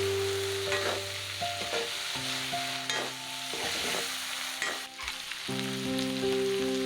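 Food sizzling as it fries in a pan, with stirring and scraping clicks, under background music of long held notes.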